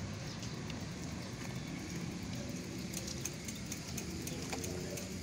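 Steady outdoor background rumble, low and even, with a few faint light clicks over the second half.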